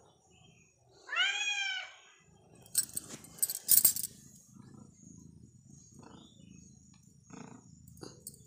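A domestic cat meows once about a second in, a call that rises and then falls, then purrs softly as it is petted. A short burst of loud clattering noise comes about three seconds in.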